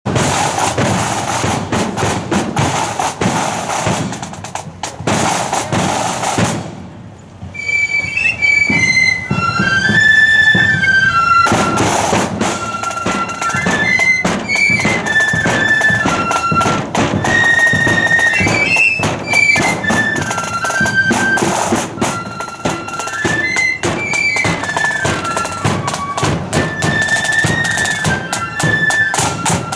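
Marching flute band: the snare and bass drums play alone at first, drop to a brief lull about seven seconds in, then the flutes strike up a melody over the drums.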